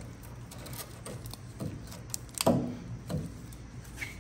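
Hand-tool work on a rear sway bar end link: light clicks and knocks, and four or five short squeaks that fall steeply in pitch, the loudest about halfway through.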